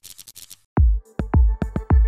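Electronic intro music. A quick run of high hi-hat-like ticks, a short break, then a heavy kick-drum beat with sustained synth tones comes in just under a second in.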